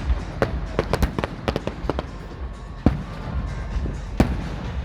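Fireworks going off: a quick string of sharp cracks in the first two seconds, then two single, louder bangs about three and four seconds in.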